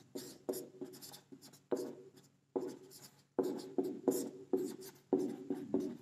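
A marker writing on a whiteboard: a quick run of short squeaky strokes, with a brief pause about two and a half seconds in.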